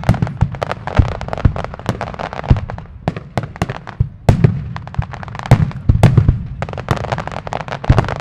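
Fireworks display: rapid, irregular cracks and pops from many shells bursting at once, with several deep booms among them.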